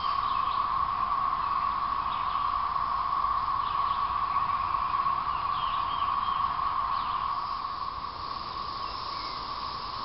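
Chorus of 13-year periodical cicadas (Magicicada, Brood XIX): a dense, steady drone from many males calling at once, easing slightly near the end.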